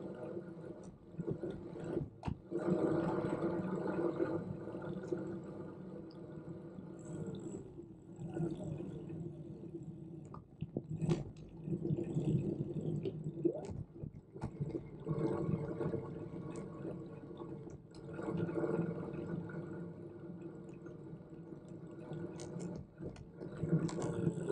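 Ambient riding noise on a Brompton Electric folding bike: a steady hum with a rushing wash of wind and road noise, broken by a few sharp clicks and rattles.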